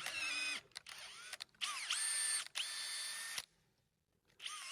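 Cordless drill running a thread tap into screw holes to clear gummed-up threads, in several short bursts. Each burst is a whine that rises quickly to a steady pitch, with a pause of about a second near the end.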